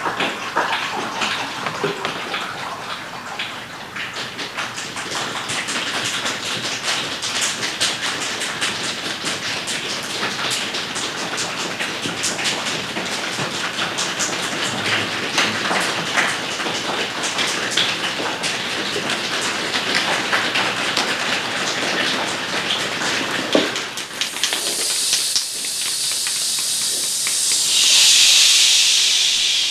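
A choir making a rain-like patter of many small overlapping clicks and taps. Near the end it turns into a loud, shared hissing "shhh" that swells and then fades.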